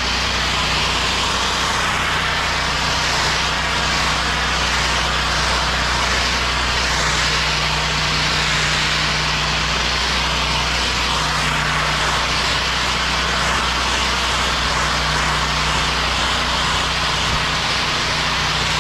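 Pressure washer's gas engine running steadily under a loud, continuous hiss of water spraying at the pavers during the rinse.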